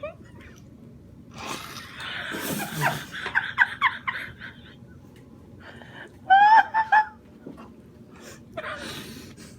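A person's wordless vocal sounds: breathy gasps and runs of short, high-pitched, laugh-like cries. The loudest are three quick cries about two-thirds of the way through.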